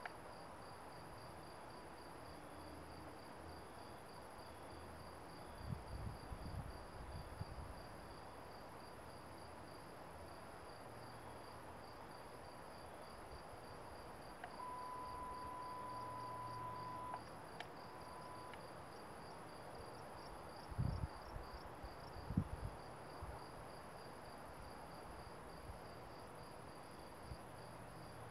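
Crickets chirping steadily in a fast, even high-pitched trill. A few low bumps come about six seconds in and again around twenty-one seconds, and a steady high tone sounds for about two and a half seconds near the middle.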